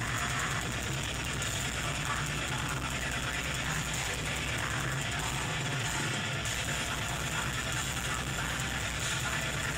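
Black metal band playing live: a dense, unbroken wall of distorted guitars and rapid, clattering drumming at a steady high volume.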